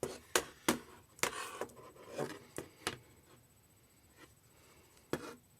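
Handling of a wireless keyboard and its battery-compartment parts: a run of light clicks and taps of small hard objects in the first three seconds, then one more tap about five seconds in.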